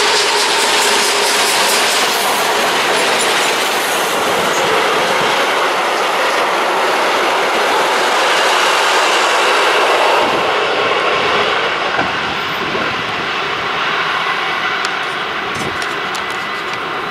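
Steam train passing close by: the locomotive and then a string of vintage wooden-bodied passenger carriages rolling past, wheels running over the rails. The noise is loud and steady, then eases over the last several seconds as the train moves away.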